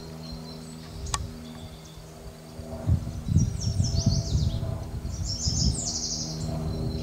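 Birds chirping in quick runs of short high notes, several series in a row in the second half. A low rumbling noise, the loudest part, runs under them for a few seconds mid-way, and there is one sharp click about a second in.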